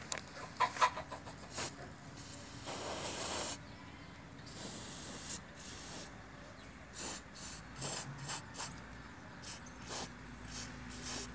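Aerosol spray can hissing in bursts: two longer sprays of about a second each, then a string of short spurts.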